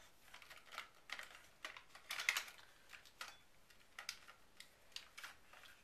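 Irregular light clicks and rattles of a Tokyo Marui G36C airsoft rifle's plastic parts being handled and fitted together, with a cluster of sharper clicks about two seconds in.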